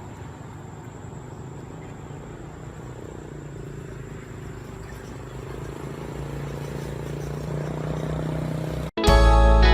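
A motor vehicle's engine running over outdoor background noise, slowly growing louder. Near the end the sound cuts abruptly to guitar music.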